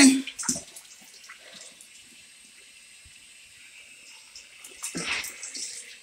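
Water trickling and splashing faintly in a kitchen sink, growing louder about five seconds in.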